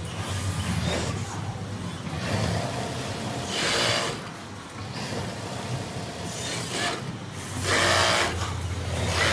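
RAMBO RM-197H three-needle chainstitch feed-off-the-arm industrial sewing machine running, with a steady motor hum and two louder bursts of rapid stitching, about four seconds in and near the end.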